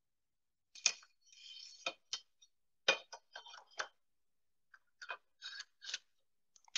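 Light metal clinks, taps and scrapes as the transducer's adjustable metal rod is threaded through a hole in a steel mounting plate, with a few sharp clicks about once a second at first, then softer ones.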